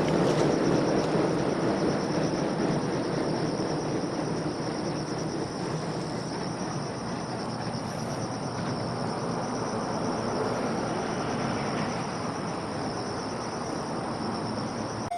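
Freight train running past and moving away, its rumble and wheel noise fading slowly. Insects chirp in a steady high, finely pulsing band.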